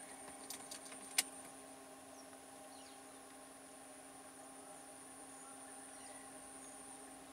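Faint outdoor background of a steady high, thin whine over a low hum, with a few sharp clicks in the first second or so, the loudest about a second in. No elephant calls are heard.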